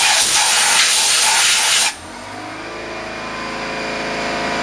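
Compressed air blasting coolant off a freshly milled aluminium part with a loud, steady hiss that cuts off suddenly about two seconds in. A steady machine hum follows and slowly rises.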